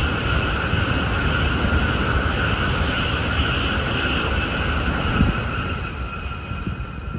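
A train passing at speed: a steady rushing noise that fades away near the end as it recedes.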